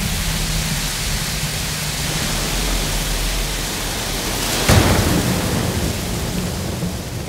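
Rain pouring steadily in a storm, with a sudden loud crack of thunder a little under five seconds in that trails off into a low rumble.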